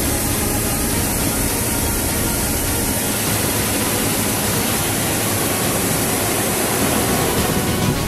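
Claas Lexion 440 combine harvester running while unloading barley through its auger into a trailer: a steady, loud machine noise with the hiss of pouring grain.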